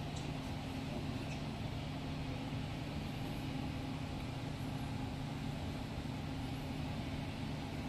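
Steady low hum of a yacht's onboard machinery, with a few fixed low pitches that hold level and do not change.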